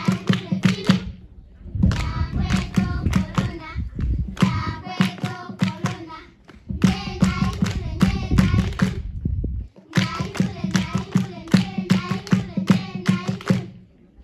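People singing with rhythmic hand clapping. The song comes in phrases broken by short pauses.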